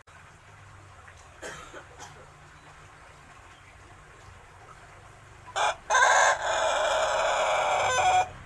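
A young Pelung rooster, about six months old and just learning to crow, crows once about six seconds in. It gives a short opening note, then a long held call of about two and a half seconds that cuts off abruptly.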